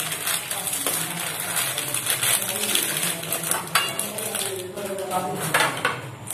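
Plastic biscuit wrappers crinkling and tearing as the packets are ripped open by hand, with light clicks of biscuits and fingers against a steel plate.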